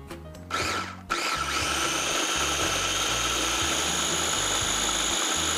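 Electric mini food chopper blending banana and Greek yogurt into a smooth purée: a short pulse, then the motor runs steadily with a whine that rises as it comes up to speed about a second in.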